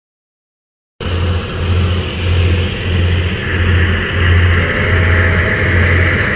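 Silence for about a second, then a motor boat under way: a loud, steady engine and water noise with a low pulsing about one and a half times a second.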